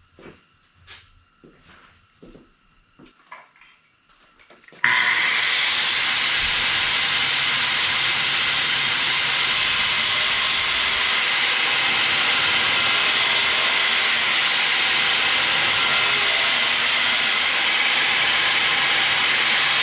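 An angle grinder's abrasive cutting wheel cutting metal bracket stock: a loud, steady hissing rasp that starts suddenly about five seconds in. Before it come a few light clicks of metal being handled.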